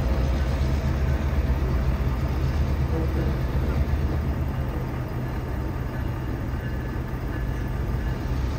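Diesel-electric locomotive running with a steady low rumble as it pulls slowly away across the yard; the rumble eases a little past the middle.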